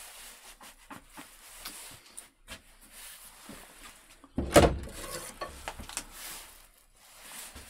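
Woodturning tools being handled at the lathe: scattered light clicks and rustling, with one loud clunk about halfway through.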